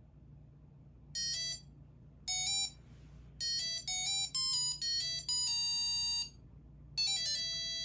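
Nixie tube clock kit's buzzer playing its start-up tune: a quick run of short, bright electronic beeps at changing pitches, one longer held note, a brief pause, then the tune starting again near the end.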